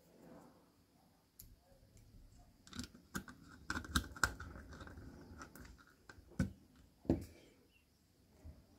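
Light clicks, taps and knocks of hands handling the plastic turntable housing and its LED circuit board, busiest a little after the start, with a couple of single knocks near the end.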